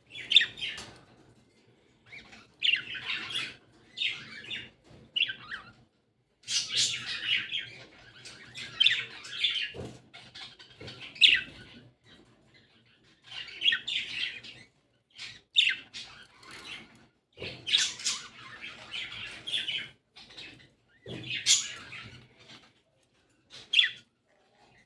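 Budgerigars chattering and chirping in repeated bursts of a second or two, with short pauses between them.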